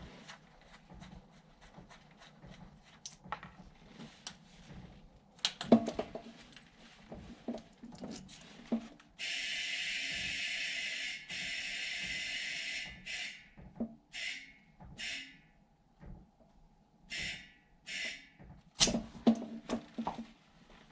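Scattered clanks and knocks of tools and wheel parts being handled, then a long, loud hiss of about three and a half seconds with a brief break, followed by four or five short hisses of under a second each, like spray or air let out in bursts. More knocks come near the end.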